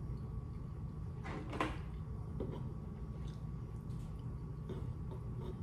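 Quiet eating and handling of food at a table: small clicks and ticks, with one short, louder scrape or rustle about a second and a half in, over a steady low hum.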